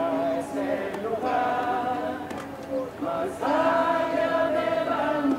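A crowd singing together, many voices holding long notes, with a brief pause about three seconds in.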